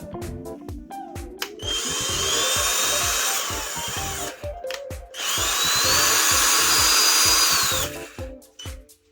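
Mako 18V cordless hammer drill run twice, about three seconds each time: the motor whine rises as it spins up, holds steady, then stops. Background music with a steady beat plays underneath.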